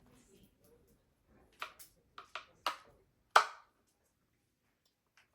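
Half a dozen sharp knocks in quick succession, the last the loudest, as an ice egg is struck in an attempt to crack it open.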